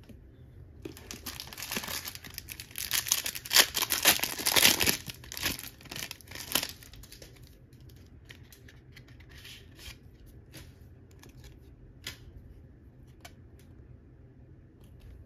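A trading-card pack wrapper being torn open and crinkled, loudest for a few seconds in the first half, then a few scattered crinkles and clicks as it is handled.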